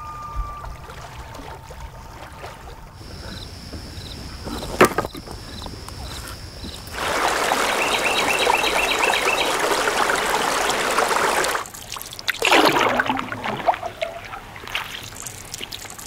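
The tail of a common loon's call, then a split log knocking once as it is set down on a woodpile, a loud steady rushing noise for about four and a half seconds, and a paddle stroke swishing through lake water, followed by dripping.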